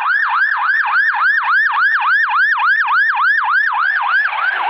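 Fire engine's electronic siren on a fast yelp, its pitch sweeping up and down about four times a second.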